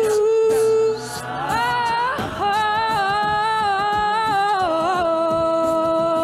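A cappella group singing an R&B arrangement: a female lead holds long sung notes without words, sliding up about two seconds in and settling on a lower held note near the end, over the group's sustained backing voices and a vocal-percussion beat.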